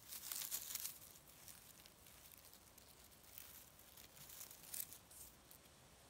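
Faint crackling and tearing of leaf litter, grass and moss as chanterelle mushrooms are pulled up from the forest floor by hand, in two spells: one in the first second and another past the middle.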